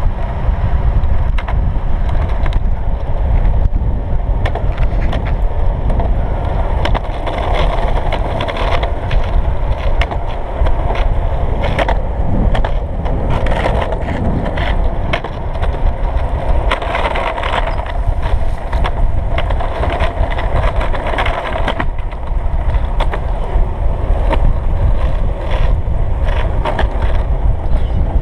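Skateboard wheels rolling on an asphalt path: a continuous rumble, with scattered sharp clicks and knocks as the wheels cross cracks and rough patches.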